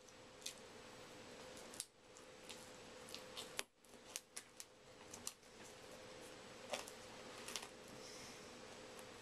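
Faint, scattered mouth clicks and smacks of someone chewing and licking chocolate off his fingers, over a faint steady hum.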